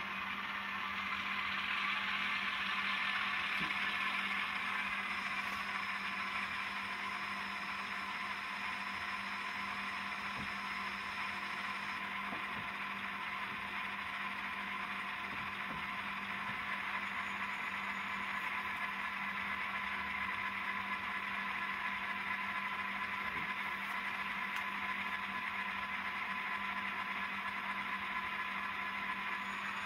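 Synthesized diesel locomotive engine sound from an ESU LokSound V5 micro decoder, played through the small speaker of an N scale Kato E5A model, with a steady hum. It is a little louder for the first few seconds while the model rolls in, then settles to a steady idle once it has stopped.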